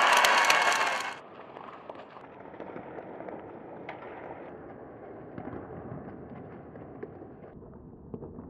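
Arena crowd cheering and clapping after a goal, cut off abruptly about a second in. Then quieter ice hockey play follows, with scattered sharp clacks of sticks and puck.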